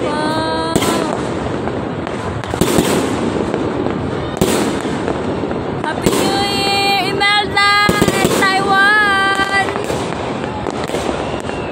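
Aerial fireworks going off: a bang about every one and a half to two seconds over continuous crackling.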